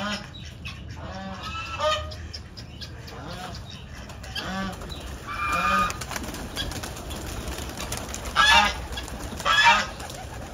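Domestic geese honking, a string of separate honks throughout, with the two loudest close together near the end.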